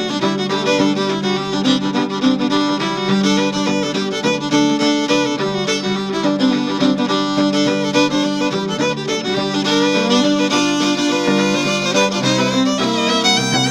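Background instrumental music led by a violin, playing sustained, steadily moving notes.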